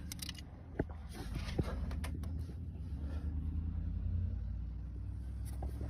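A low steady hum with a few sharp clicks and taps scattered through it.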